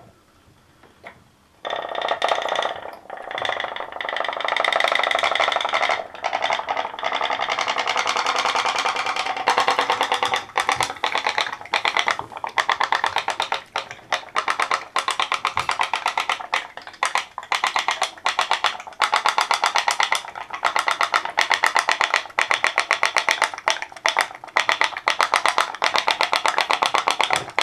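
Homemade pop-pop boat's candle-heated soda-can engine popping, a fast, steady run of clicks many times a second as the water in it flashes to steam and pushes the boat along. It starts suddenly about two seconds in.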